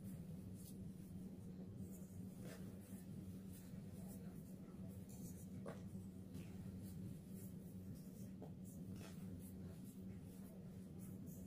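Reformed gym chalk blocks crumbling in the hands, soft dry crunches and crackles with powder sifting down into a tub of loose chalk. A steady low hum sits underneath.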